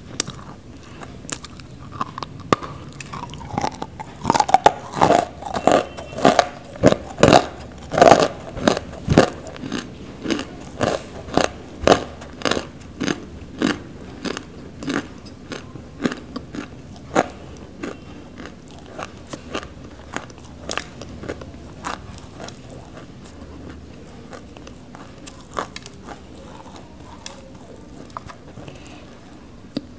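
Close-miked biting and chewing of lumps of grey nakumatt clay: sharp crunches come quickly for the first half, then thin out to occasional crunches.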